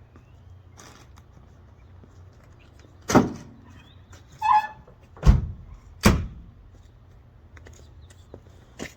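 Four loud thumps of doors or a hatch being shut over about three seconds, the second with a short squeak, over a low steady hum.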